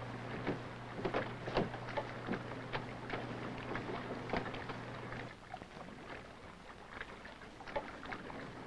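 Faint, irregular clicks and crackles over a steady low hum from an old 16mm film soundtrack; the hum drops away about five seconds in.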